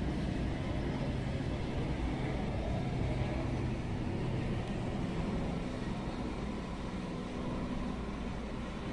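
Light helicopter flying past, a steady engine and rotor drone that eases slightly in the second half.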